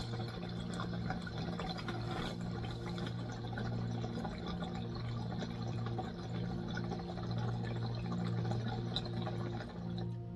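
Water bubbling steadily in two glass tabletop bongs as vapour is drawn slowly through their percolators, over a steady low hum.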